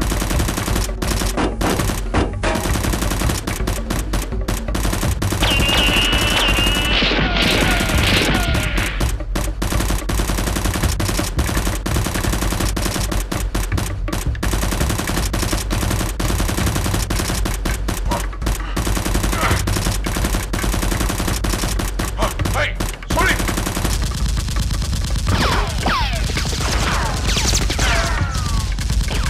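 Rapid, near-continuous automatic gunfire sound effects, dubbed over the firing of Nerf toy blasters, with background music underneath.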